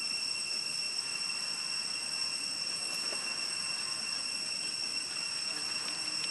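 Steady high-pitched drone of insects, one even tone with overtones that holds without a break, with a few faint ticks.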